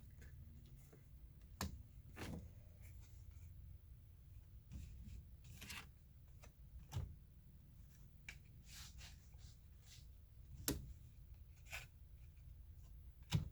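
Faint handling of trading cards: cards sliding and rubbing against each other and being set down, with a few sharp taps on a table.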